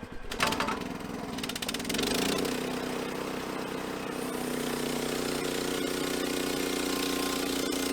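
Sawmill engine with a clatter just after the start, then brought up to speed about two seconds in and running steadily.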